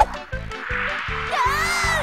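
Cartoon soundtrack: background music with a steady low beat, under a rushing whoosh that swells from about half a second in. Near the end a cartoon character gives a wavering cry that rises and then falls in pitch.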